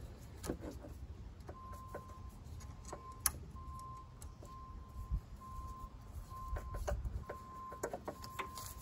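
An electronic beep at a single pitch, repeating about once a second, each beep about half a second long. Under it come scattered light clicks and taps of a screwdriver working on fasteners behind a car's front bumper.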